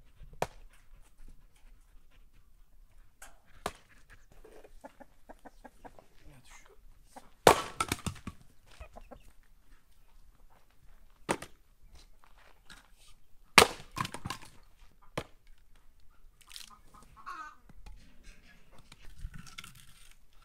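Split firewood logs being tossed onto a woodpile: a handful of sharp wooden knocks, the two loudest followed by a clatter of logs settling, with a hen clucking near the end.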